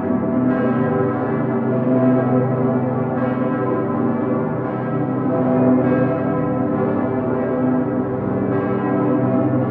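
Full festive peal of Cologne Cathedral's bells, including the great Petersglocke ('Dicker Pitter'). Many large swinging bells ring together in one dense, sustained chord, with fresh strikes about every second or so.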